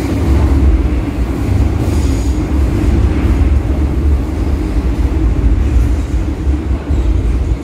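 Running noise of a Metro-Cammell-built MTR M-train heard from inside the passenger car while it travels between stations: a steady, loud, low rumble of wheels on rails.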